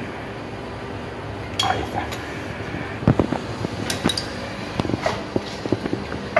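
Metal tools and equipment clinking and knocking as they are handled and set down, a scatter of sharp clicks over a steady low hum.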